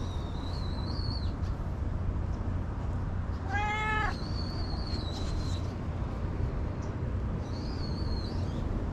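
A tabby cat meows once, a short call a little past the middle, with wind rumbling on the microphone.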